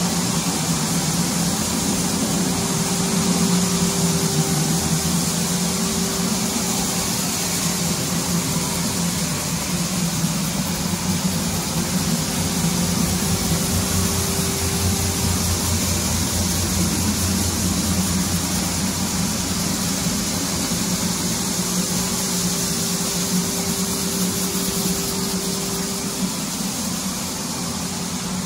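Pallmann Spider multi-disc floor sander running steadily across bare hardwood: a constant motor hum under the hiss of the sanding discs.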